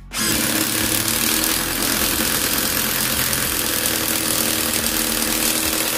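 Stanley 18V cordless impact driver (SBI201) hammering steadily under load as it drives a 150 mm screw into stacked wooden boards, its impact mechanism giving a continuous rapid rattle.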